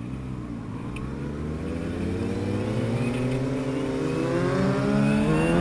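Sport motorcycle engine accelerating hard in a rolling-start street race, pulling steadily up through the revs and growing louder.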